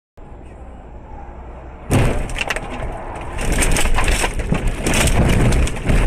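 A car running off the road, heard from inside: steady road noise, then about two seconds in a sudden loud impact, followed by continuous crunching, cracking and scraping as the car ploughs through bushes and branches.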